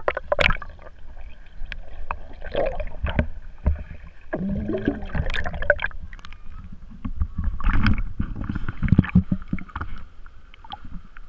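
Water sloshing and bubbling around a waterproof action camera dunked and moved underwater by a swimmer, muffled, with a constant low rumble and many short knocks and clicks against the housing.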